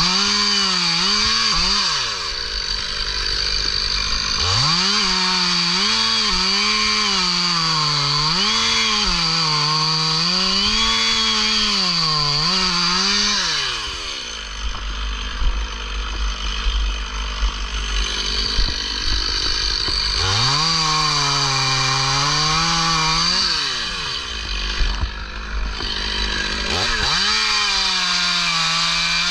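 Stihl chainsaw cutting through a walnut trunk, the engine's pitch rising and dipping as it bogs under load and recovers. About halfway through the saw eases off for several seconds, with a low rumble and a few knocks, then it goes back to full-throttle cutting.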